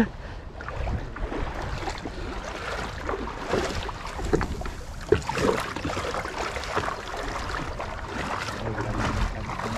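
Wind buffeting the microphone, with scattered knocks and bumps of the kayak and its gear being handled; a low steady hum starts near the end.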